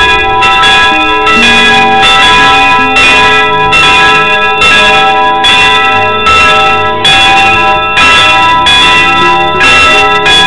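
Church bells pealing: several bells of different pitches struck in quick succession, about two strikes a second, their tones ringing on and overlapping.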